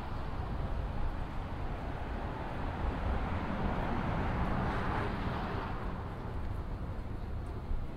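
A motor vehicle passing by, its noise swelling to a peak about halfway through and then fading, over a steady low rumble of street traffic.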